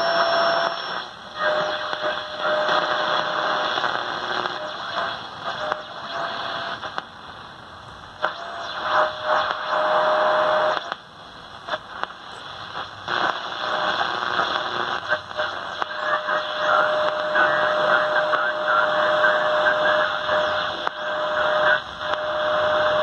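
1950 Zenith Trans-Oceanic G500 tube shortwave radio hissing with static as its dial is tuned between stations, with a steady whistle coming and going several times.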